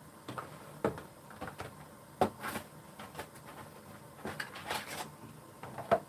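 A cardboard box of a ready-to-eat retort pouch being handled, opened and the pouch pulled out: irregular sharp taps and clicks with rustling, the loudest about two seconds in and near the end, over a faint steady hiss.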